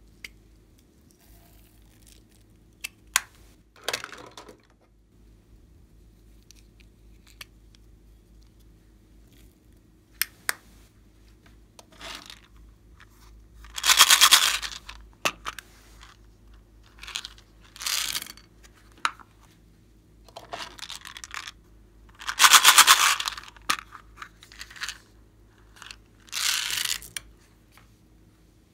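Small plastic novelty containers clicking open, and loose toppings (pearl beads, sprinkles, glitter) rattling out of them onto trays of slime in several bursts of a second or so, with sharp clicks between.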